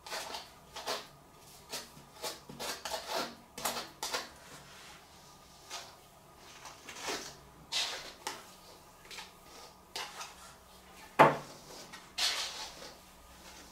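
Slicker brush being stroked through a bichon frise's tail fur to brush out loose cut hair: a run of short brushing strokes at an irregular pace. A sharp knock about eleven seconds in is the loudest sound.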